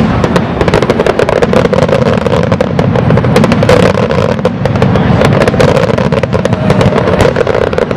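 Aerial fireworks in a rapid barrage: a dense, loud run of shell bursts and crackles, many each second, with no pause between them.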